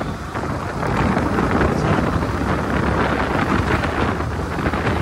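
Wind rushing over the microphone of a moving motorcycle, with vehicle noise underneath; it gets louder about a second in.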